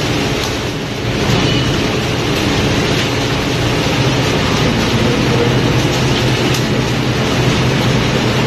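Steady machinery drone with a constant hum. Over it, a stream of large whole fish slides down a steel chute and clatters into a metal bin.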